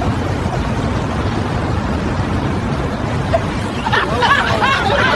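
Steady road traffic rumble. About four seconds in, a short burst of quick, wavering high vocal sounds comes in over it.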